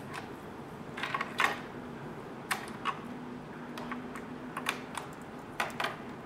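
Irregular light clicks and taps on a Pfaff sewing machine's plastic body as a spool of thick topstitching thread is set on the spool pin and the thread is led through the upper thread guides.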